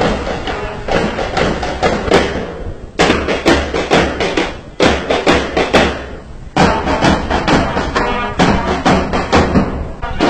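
A marching band of side drums and brass playing: sharp, rapid drum strokes over trumpet and horn parts. The sound jumps abruptly a few times.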